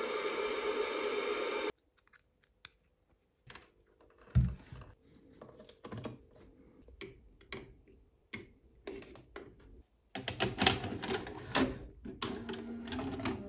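Music for under two seconds, then cut off abruptly. It is followed by irregular clicks, knocks and rubbing from handling a cable plug at the back of a portable TV and the front panel of a VHS video cassette recorder. There is one heavier knock a few seconds in and a busier run of clicking and rubbing near the end.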